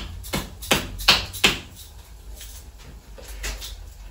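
Salt being dispensed by hand in a quick run of sharp gritty strokes, about three a second. The strokes are loudest in the first second and a half and fainter after.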